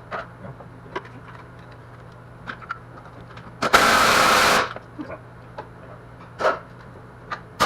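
Metal tools clicking and knocking against engine parts, with a loud rushing noise lasting about a second midway through and another starting right at the end.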